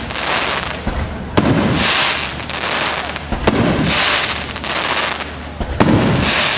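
Aerial fireworks shells bursting: three sharp bangs about two seconds apart, each with a second or so of hiss around it.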